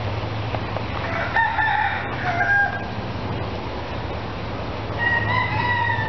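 Rooster crowing twice: one crow about a second and a half in, a second one starting near the end, over a steady low hum.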